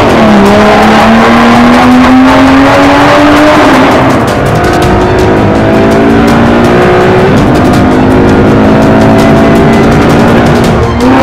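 Racing-car engine sound accelerating through the gears. The pitch climbs slowly and falls back at each shift, at the start and about four and seven seconds in, then rises quickly near the end.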